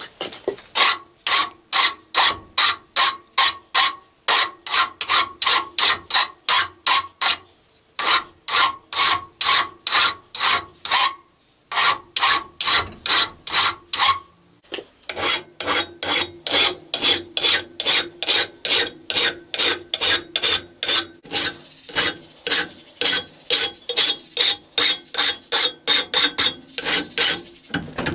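Flat hand file rasping back and forth across the steel cutting edge of a Skandia hatchet head, in quick even strokes of about three to four a second, with short pauses every few seconds.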